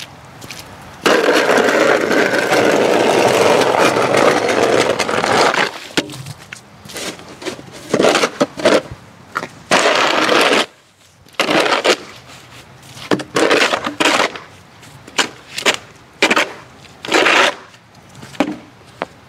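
Snow shovel scraping snow off a paved sidewalk: one long push lasting about five seconds, then a run of short scrapes as the blade is pushed in quick strokes.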